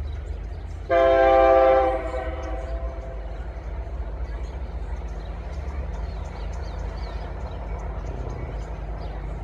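A diesel freight locomotive's air horn sounds one short blast of about a second, several notes at once, about a second in. A steady low rumble of the train continues underneath.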